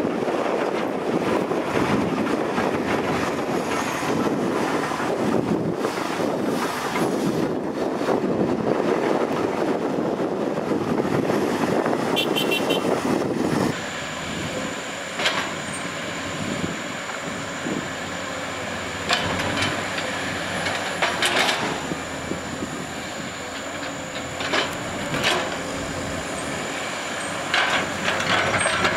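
Soil pouring off a tipping dump truck's raised bed with diesel engines running, a loud, even rushing noise that stops abruptly about fourteen seconds in. Then a Komatsu PC210 hydraulic excavator's diesel engine running steadily with a high whine, and several sharp knocks as its bucket works the soil and rock pile.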